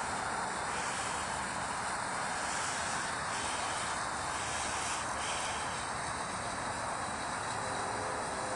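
Steady outdoor background noise, an even hiss with no distinct events.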